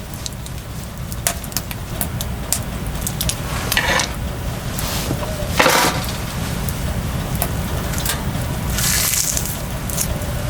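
Scattered sharp snaps and crackles over a steady low rumble, with louder rustling bursts about four and six seconds in.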